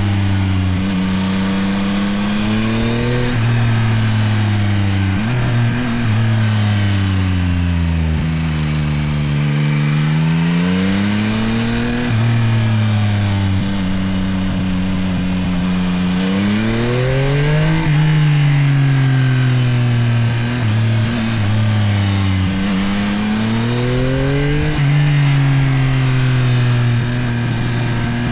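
Yamaha CP3 inline three-cylinder engine of a Tracer 9 GT+ motorcycle under way, its pitch climbing and falling over and over as the rider accelerates and backs off. It drops sharply at upshifts, about two-thirds of the way in and again near the end.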